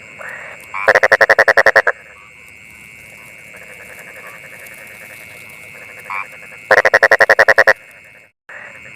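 A frog calling twice, each call a rapid train of pulses lasting about a second, one about a second in and one near the end. Between the calls are a steady high-pitched drone and a faint hiss.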